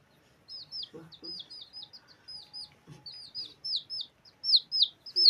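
Rapid high-pitched chirping like a chick peeping: a run of short downward-sweeping peeps, several a second, growing louder toward the end.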